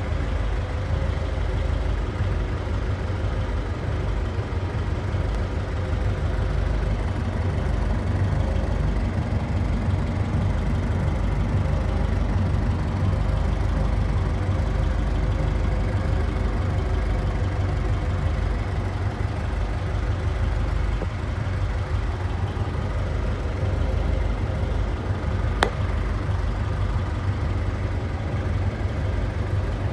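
Ford Model A roadster engine idling steadily, a low even running sound. Near the end there is a single sharp click.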